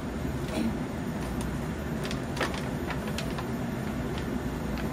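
A silicone basting brush dabbing and scraping oil and spice over whole tilapia in a foil tray, heard as a few soft clicks and crinkles. Under them runs a steady low background hum.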